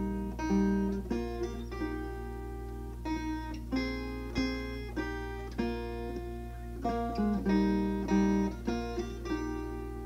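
Background music: an acoustic guitar picking notes and chords, each note ringing and fading before the next.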